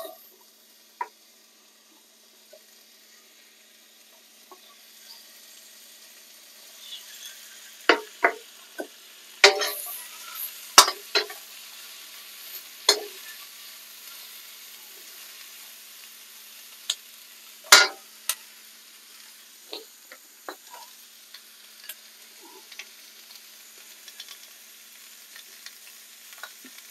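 Wood ear and portabella mushrooms with onion and banana pepper sizzling in a hot wok as they are stir-fried, the sizzle building a few seconds in. A metal ladle scrapes and clanks against the wok, most sharply about eight to thirteen seconds in and again around eighteen seconds.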